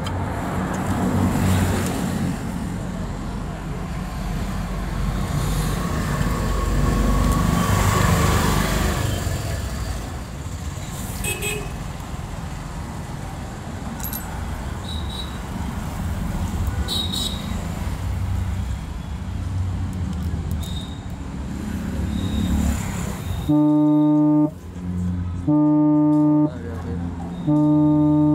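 Road traffic noise that swells about eight seconds in, then near the end a vehicle horn sounds three loud, steady blasts of about a second each.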